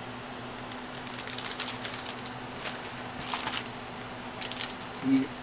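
Clear plastic bags holding model kit parts sprues rustling and crinkling as they are handled, in scattered short bursts over a steady low hum; a brief vocal sound near the end.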